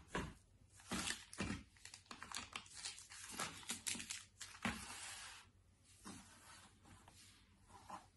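Packaging being handled and torn open by hand, with irregular crinkling and tearing rustles that die down to faint scattered rustling about five and a half seconds in.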